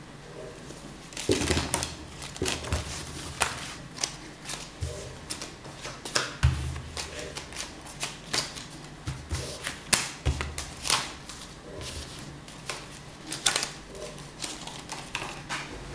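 Playing cards being handled and dealt onto a cloth close-up mat: a run of irregular sharp snaps and clicks as cards come off the deck, with a few dull knocks.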